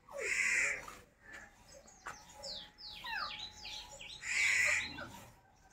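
Crows cawing, two harsh calls about four seconds apart, with a run of quick falling chirps from other birds between them.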